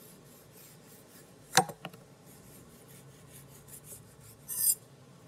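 Chef's knife cutting the peel off a pink grapefruit on a wooden chopping board: a sharp knock about a second and a half in, then a lighter one just after, and a short scrape near the end.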